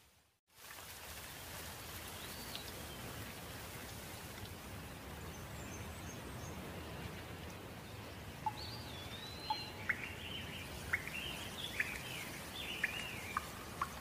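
Steady rain falling on foliage, after a brief gap at the very start. From about eight seconds in, a bird calls over it in a series of short, sharp chirps.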